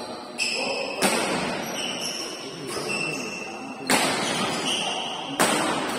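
Badminton rackets striking the shuttlecock in a doubles rally: four sharp hits at uneven gaps of about one to three seconds, each echoing in a large hall, with short high squeaks of shoes on the court floor between them.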